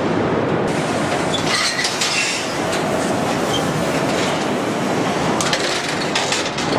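Steady din of factory machinery on a car-body production line, with scattered sharp metallic clicks and clinks, more of them near the end.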